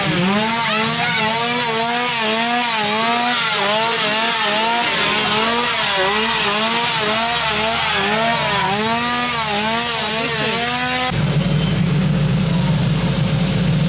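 A small engine revving up and down over and over, about twice a second. About eleven seconds in, it changes suddenly to a steady low drone.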